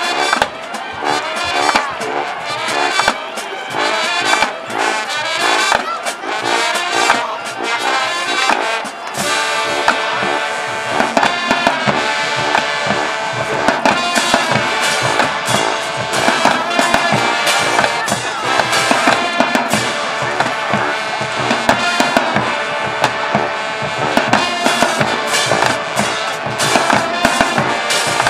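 High school marching band playing: brass over a steady beat of drums.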